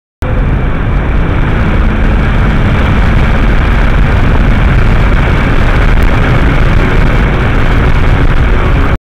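Steady road, wind and engine noise inside the cabin of an Infiniti G37 cruising at speed, loud and heavy in the low end. It starts abruptly just after the start and cuts off abruptly at the end.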